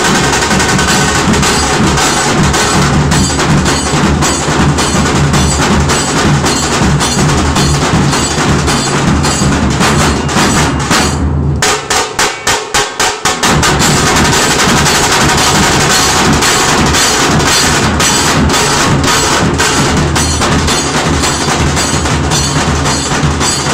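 Dhol-tasha ensemble playing loud and fast: big barrel dhols struck with sticks under rapid tasha snare strokes. About halfway through, the deep dhol beats stop for two seconds while quick light strokes carry on, then the whole group comes back in.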